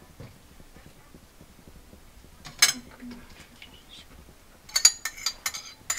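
A spoon clinking against a glass mixing bowl as yogurt is spooned into a chicken marinade: one sharp clink about two and a half seconds in, then a quick run of clinks near the end.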